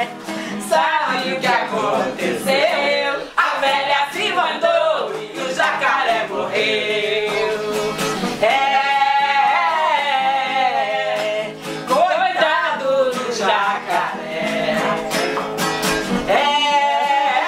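Live singing of a Brazilian carnival marchinha over a strummed acoustic guitar, the voice carrying the tune in phrases over a steady strumming rhythm.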